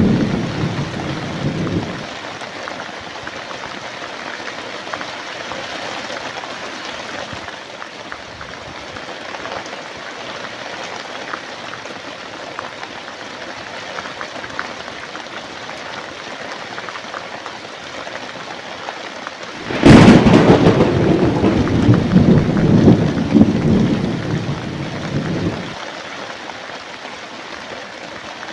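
Steady rain falling, with the last of a thunder rumble dying away in the first two seconds. About twenty seconds in, a sudden sharp thunderclap cracks and rolls on as a low rumble for about six seconds.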